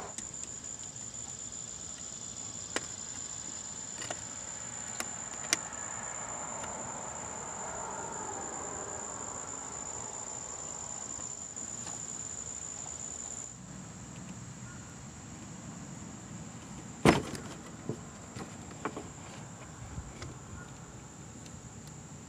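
Hand tools working the spring hose clamp and low-pressure hose off a power steering reservoir: a few light metal clicks, then one sharper clack about three-quarters of the way through, followed by smaller ticks. Under it a steady high insect trill runs, growing fainter about halfway through.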